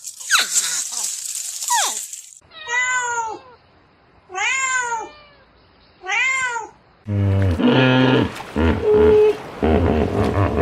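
An animal calling: after a couple of seconds of hiss with a few falling whistles, three drawn-out calls that rise and fall in pitch come about a second and a half apart, followed by a run of lower, harsher calls.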